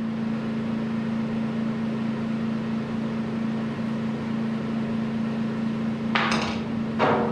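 A steady low hum throughout, then two short scraping clatters about six and seven seconds in, as a tool is handled against the wooden truck-bed floor.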